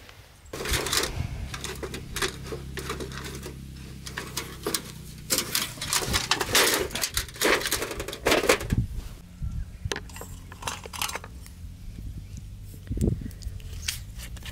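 Thin metal plates of a folding fire pit clinking and clattering as it is handled and assembled, a quick run of metallic clanks that starts about half a second in and is loudest around the middle.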